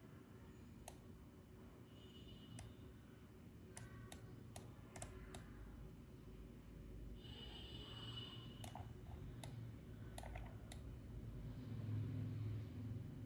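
Faint, irregular clicks of a computer mouse and keyboard, about a dozen, several in quick succession around the middle, over a low steady hum.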